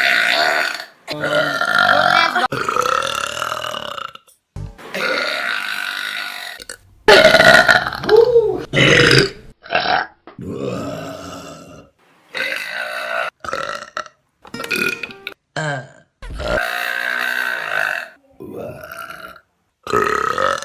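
A rapid string of loud human burps, one clip after another with short silent gaps between, some long and wavering in pitch; the loudest and longest comes about a third of the way through.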